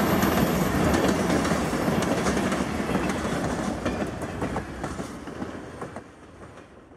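Freight train of tank cars rolling past, a steady rush of wheel-on-rail noise with rapid clicks as the wheels cross rail joints. It fades as the last car goes by and drops away about six seconds in.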